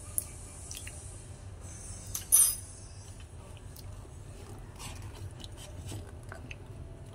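Spatula stirring a thick, sticky ube maja blanca mixture in a metal pan: soft wet squishing and scraping with scattered clicks, and one sharp clink of the spatula against the pan about two and a half seconds in.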